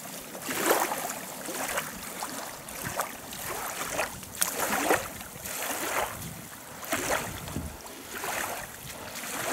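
Oars dipping and splashing in water in a loose rhythm, about once a second, as an inflatable boat is rowed.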